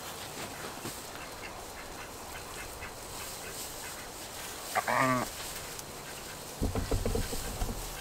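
A single honking call from a goose or duck-type waterfowl about five seconds in, lasting about half a second. Faint scattered rustles lead up to it, and a burst of low rumbling thuds follows near the end.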